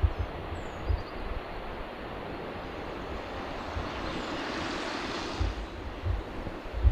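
Steady hiss of rain on a wet street, with wind buffeting the microphone in low thumps. About four seconds in, the hiss swells louder and fades again.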